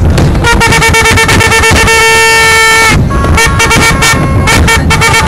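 Boat horns sounding over the continuous rapid banging of aerial fireworks: one long steady horn blast for about two and a half seconds, then shorter horn blasts at other pitches.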